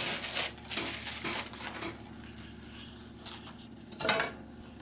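Paper rustling as the paper interleaf sheet is peeled away from a sheet of wax foundation. It is loudest at the start, with a few softer rustles and a short sharp rustle about four seconds in.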